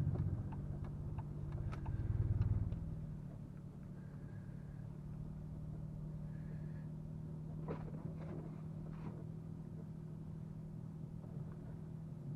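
Chrysler 300 AWD driving on snow-covered road, its engine running steadily with a louder surge of engine and tyre noise about two seconds in, and scattered light clicks and crunches.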